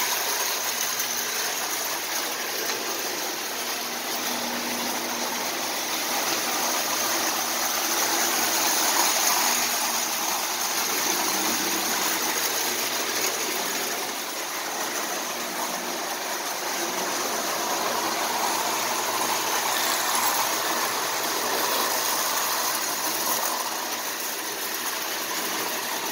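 Marx prewar tinplate toy train with its Commodore Vanderbilt locomotive running on tinplate track: a steady metallic whirring rattle of motor and wheels. It swells and fades gently as the train circles the layout.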